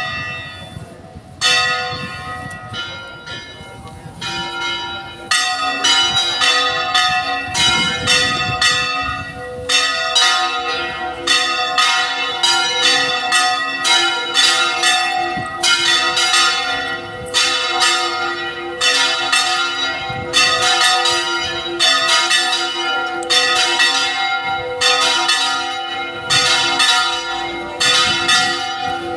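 Church bells ringing: a few separate strikes at first, then from about five seconds in a steady run of strikes, each ringing on into the next.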